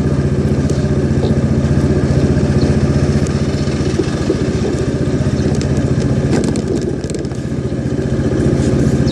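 Yamaha SMAX 155 cc single-cylinder scooter engine running steadily, with irregular ticking over it: the abnormal noise that appears on the first ride in cold weather.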